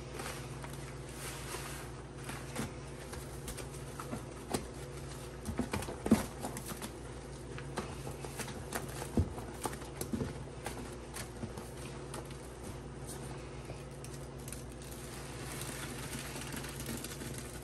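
Grout sponges soaked in thick, foamy lavender Comet cleanser paste being squeezed and pressed by gloved hands in a plastic tub: wet squelching with a dense crackle of clicks and popping bubbles through the middle, and a softer foamy hiss near the start and end.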